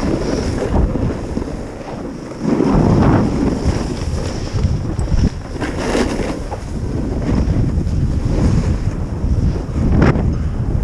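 Wind rushing over an action camera's microphone during a fast descent of a groomed ski run. Snow scrapes under the edges on the turns, rising in swells about every three to four seconds.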